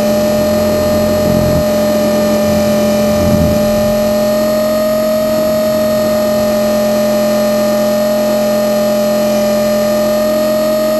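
Blade 450 X electric RC helicopter in flight, heard from a camera mounted on the airframe: a loud, steady whine from its brushless motor and rotor drive. Two brief low rumbles of wind on the microphone come about one and three seconds in.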